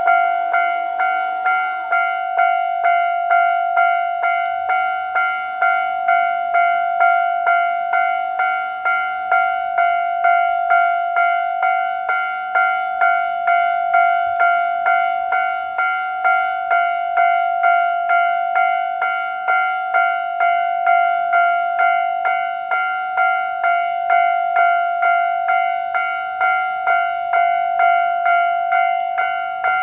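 Japanese railway level-crossing alarm ringing its "kan-kan-kan" warning, one steady bell tone struck over and over at about two strokes a second, the signal that the crossing is closed for an approaching train.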